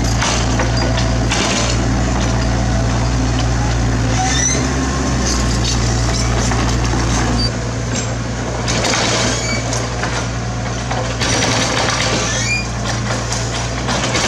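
Diesel engine of a mini excavator running steadily, with short bursts of rock debris scraping and clattering a few times as the machine works.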